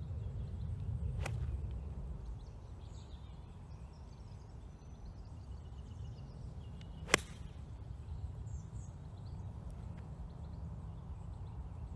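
Sharp crack of an iron club striking a golf ball off the tee, once, about seven seconds in, with a fainter click about a second in. A steady low wind rumble on the microphone runs underneath.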